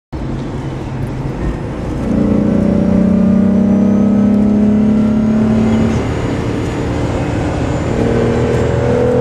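Volkswagen Golf Mk3 VR6 Syncro's 2.9-litre VR6 engine heard from inside the cabin, pulling under acceleration. The revs climb steadily for a few seconds, ease off about six seconds in, then pull again near the end.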